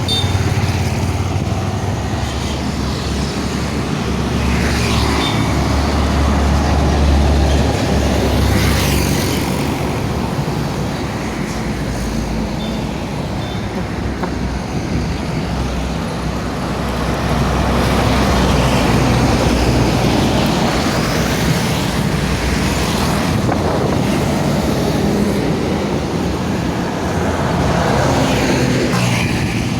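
Highway traffic: large diesel buses and trucks passing close by, with a steady low engine hum and several passing swells.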